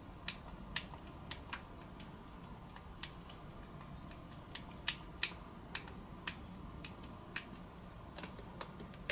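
Front-panel push buttons of a Nakamichi 1000ZXL cassette deck being pressed one after another while they are tested: sharp, irregular clicks, about two a second, over a faint steady hum.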